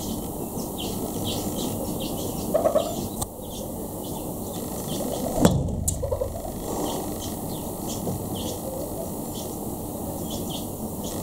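Red-billed hornbill giving short runs of low clucking notes, twice, with two sharp knocks, the second the loudest. High, short chirps sound throughout.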